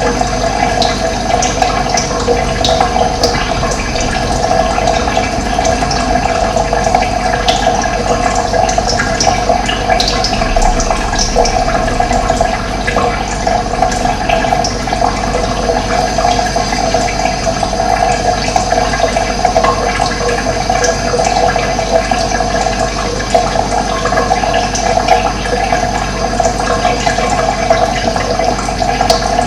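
Steady rush of running water, with occasional brief high bird chirps over it.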